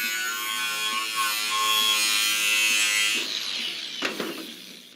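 Cordless angle grinder cutting through a riveted aluminium boat hull: a steady motor whine with a hissing cutting sound, fading out about three seconds in.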